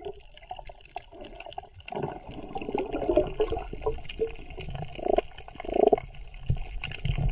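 Muffled sea water sloshing and gurgling in irregular swells, with two louder surges about five and six seconds in.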